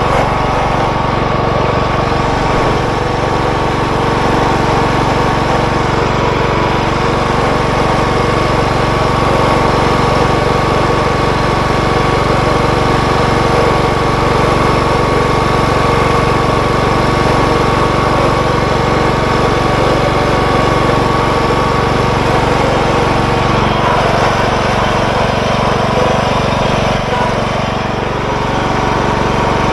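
John Deere hydrostatic riding mower running steadily, with a steady whine over the engine that fades about two-thirds of the way in. It is the noise that comes with the hydrostat wide open, which the owner puts down to the rear end making a little racket.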